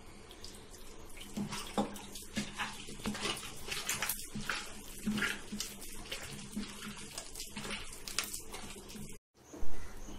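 A hand mixing wet wheat-flour bonda batter in a steel bowl, with irregular squelching and slapping strokes of the loose, watery dough after more water has been added. A sharp knock near the end.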